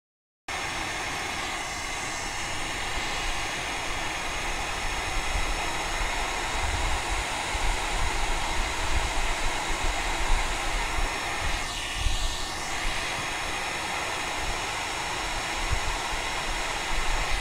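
Papillon electric hot-air weed remover running, its fan blowing a steady rush of air out of the chrome nozzle. It starts abruptly about half a second in.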